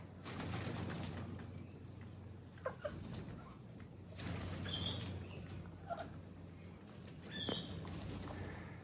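Australian king parrots and a couple of hens feeding on the ground: a few short, scattered bird calls over a low steady background.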